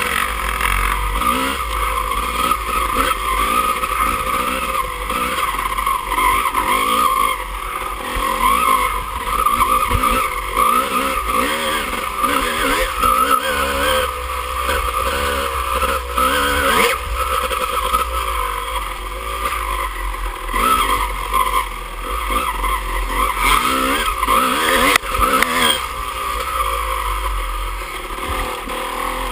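Dirt bike engine heard from on board, revving up and down again and again as the throttle is worked and the gears change on a rough trail.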